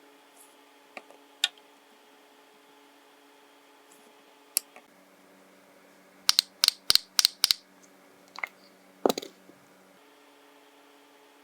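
Sharp clicks and taps of small hard nail-prep tools and supplies being handled: a few scattered single clicks, then a quick run of about seven clicks, then one louder click. A faint steady hum sits underneath.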